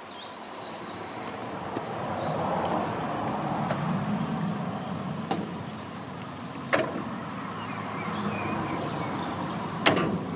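A motor vehicle's engine and tyre noise, swelling over the first few seconds and then holding steady. A few sharp clicks sound over it.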